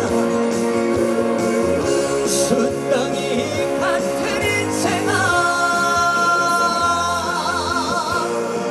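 A song with singing over band accompaniment; from about five seconds in a long note is held, wavering into vibrato near the end.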